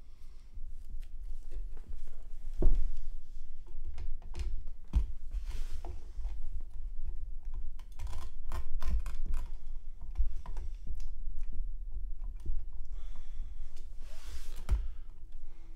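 A power-supply motherboard power cable being handled and plugged into a computer motherboard: irregular plastic clicks and knocks from the connector and cable against the rig frame, the loudest knock about three seconds in, with the sleeved cable bundle rustling as it is pulled and routed, briefly around the middle and again near the end.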